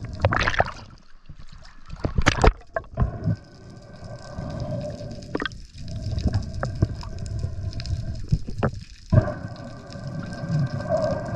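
Splashing as a diver goes under the surface, then the muffled sound of the sea heard underwater: a steady hum with scattered clicks that cuts out briefly twice.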